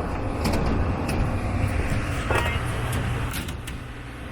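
Steady low mechanical rumble with a hum, a few sharp clicks and knocks, and a brief voice about two seconds in; it grows quieter near the end.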